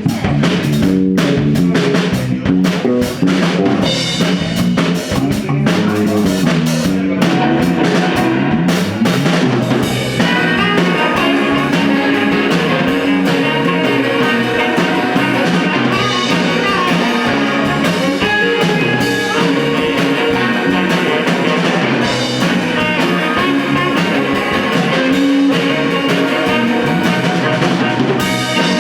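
Live rock band sound-checking: a drum kit played alone for about the first ten seconds, then guitar and bass come in with sustained notes over the drums.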